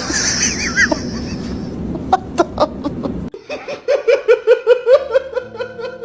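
Laughter: a fast, rhythmic run of 'ha-ha-ha' pulses starting a little past halfway, after a noisier, unpitched stretch.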